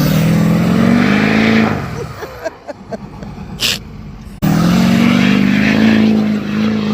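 Diesel truck engine revved hard and held at high revs, easing off about two seconds in, then revving hard again after a sudden jump about four seconds in. A short high hiss comes in the quieter middle part.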